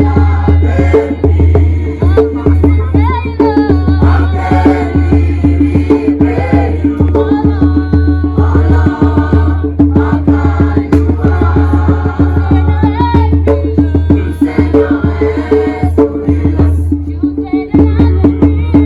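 Background music with a quick percussive beat, a heavy bass line and a singing voice.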